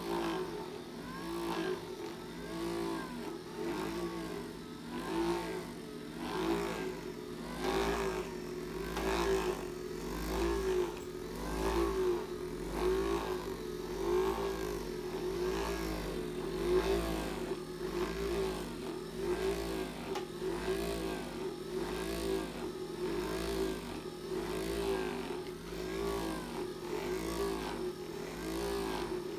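Handheld electric percussion massager running steadily, its motor hum rising and falling in pitch about once a second as it is worked over the cat's body.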